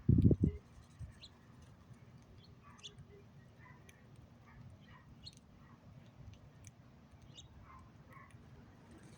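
A few heavy low thumps right at the start, likely a bird landing on or knocking the feeder. They are followed by faint, scattered short bird chirps and light ticks.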